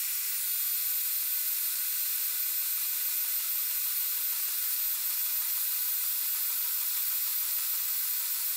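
Milwaukee portable band saw cutting through 1.5-inch steel round tube, making an angled cut: a steady hiss with a thin high whine, unchanged throughout.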